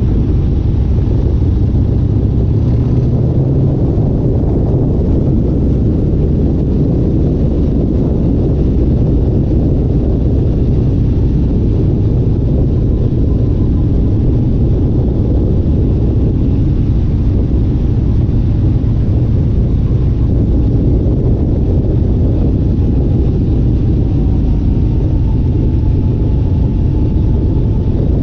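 Loud, steady low rumble of a vehicle running at speed, with no change in pitch.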